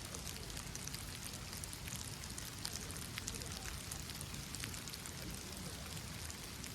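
Steady rain falling: an even hiss with many separate drops ticking sharply.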